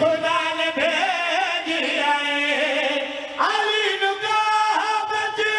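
Several men singing a drawn-out, wavering chant together into microphones: a zakir's sung majlis recitation backed by his chorus of singers. A new, higher phrase begins about three and a half seconds in.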